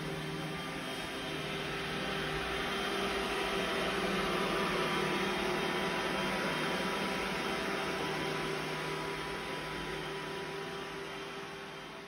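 iRobot Roomba robot vacuum running on a wooden parquet floor: a steady whir of its motor and brushes with a few humming tones. It grows a little louder toward the middle and fades near the end.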